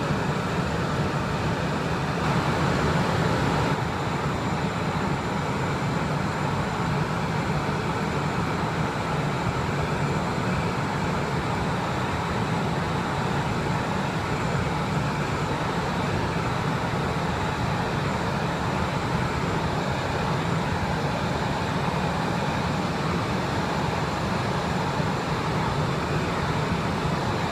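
Steady in-flight cockpit noise of a Cessna Citation Mustang 510 light jet: an even rush of airflow over the cockpit with a low engine hum, swelling slightly about two to four seconds in.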